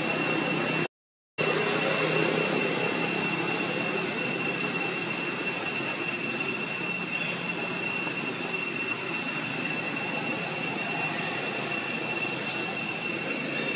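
Steady high-pitched drone of insects, most likely cicadas, an unbroken whine over a dense hiss, cut off briefly about a second in.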